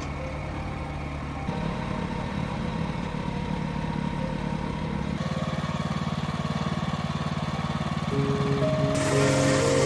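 Engine running steadily under background music, the sound changing abruptly a few times.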